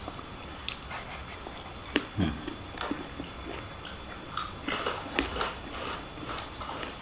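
A person eating fried rice with chicken: chewing and biting, with scattered small clicks and knocks.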